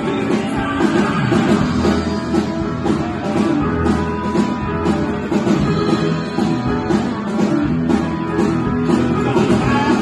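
A live rock band playing, with electric guitars and a drum kit.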